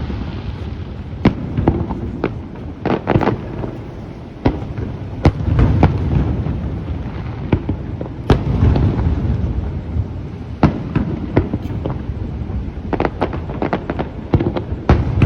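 Aerial fireworks bursting: a rapid, irregular series of sharp cracks over a continuous deep, rolling rumble of booms, with a dense cluster of cracks near the end.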